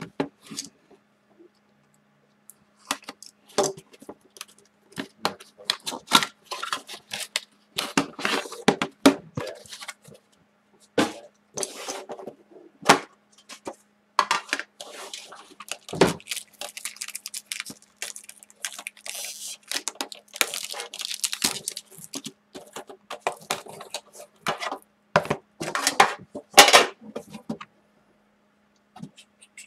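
Handling noises as a sealed trading-card box is opened and a metal tin is taken out and its lid lifted: a busy run of clicks, scrapes and rustles of cardboard, wrapper and tin, with a dull knock about halfway and a sharp clack near the end.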